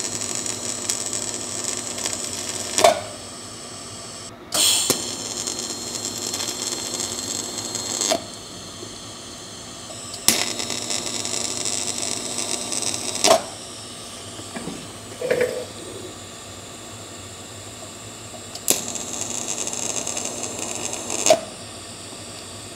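TIG welding arc tack-welding the steel plate of a Shengyi SX1 hub motor's freewheel clutch to its keyed collar. The arc hisses and buzzes in four runs of about three seconds, each starting and ending with a sharp click, with a quieter steady hum between the tacks.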